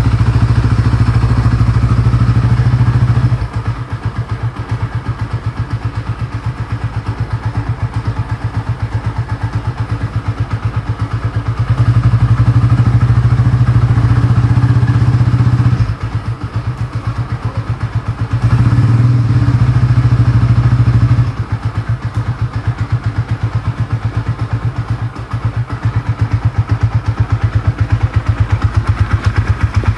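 Honda Tiger single-cylinder four-stroke engine, stroked 7 mm, in a Honda CB motorcycle, running with an even, steady beat. It gets noticeably louder for a few seconds at a time: at the start, around the middle, and again a little later.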